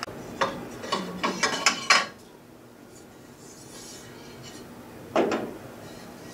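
A quick run of sharp metallic clicks and clatters in the first two seconds, then one short knock about five seconds in, from handling small metal hose fittings and the aluminum upper radiator pipe.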